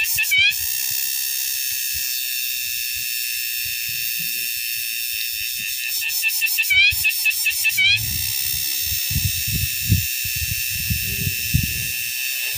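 Cicada singing a loud, steady, high buzz. It breaks into rapid pulsed phrases at the start and again about six to eight seconds in. Low rumbling thumps of wind or handling on the microphone come through in the second half.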